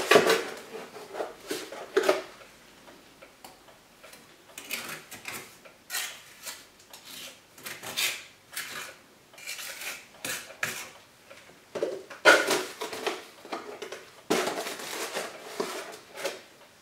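Small trowel scraping and clinking as wet Quickrete mortar is scooped and pressed into holes around a chimney's stove-pipe opening, in irregular strokes with short pauses.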